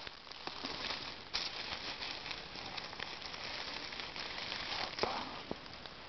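Rustling and crackling of grass and dry fallen leaves, irregular, as someone moves through them and reaches down to the ground, with louder rustles about a second in and near the end.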